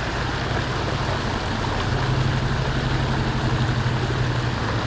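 Steady rush of flowing creek water, with a low hum underneath that swells a little from about two seconds in.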